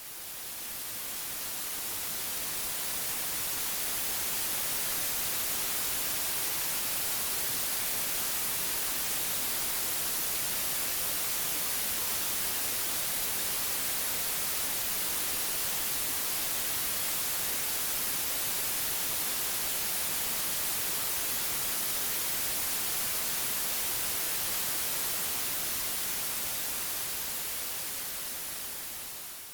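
Steady white noise: an even, featureless hiss, strongest in the treble. It swells in over the first few seconds and dips away near the end.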